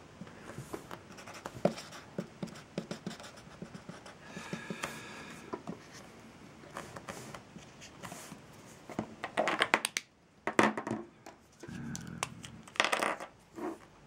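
Sharpie permanent marker scratching and squeaking across a tabletop as colour is filled in, with small clicks and taps of pens being handled. A few louder knocks and rustles come near the end.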